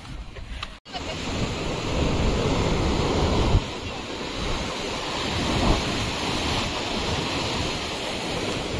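Sea waves washing onto a beach in steady, swelling surf, with wind buffeting the microphone. The surf starts abruptly a little under a second in.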